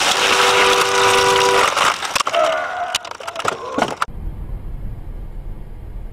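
Dashcam car crash: a loud crashing din with a car horn sounding for about a second and a half, followed by scattered sharp knocks and a brief cry. About four seconds in it cuts to the low steady road rumble of a car driving.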